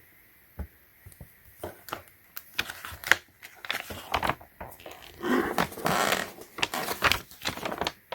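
Paper of a printed instruction manual rustling and crackling as its pages are turned and handled, with scattered clicks and a longer stretch of rustling about five seconds in.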